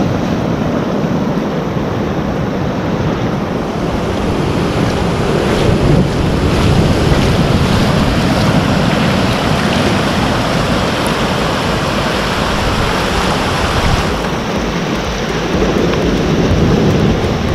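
Surf breaking and washing in over the sand, a steady rush of wave noise, with wind buffeting the microphone.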